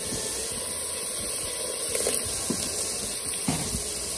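Small shrimp frying in oil in a pot, making a steady sizzling hiss, with a light tick about two seconds in and again near three and a half seconds.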